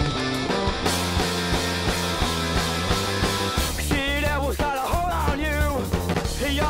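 Rock music soundtrack with a steady beat; a singing voice comes in about four seconds in.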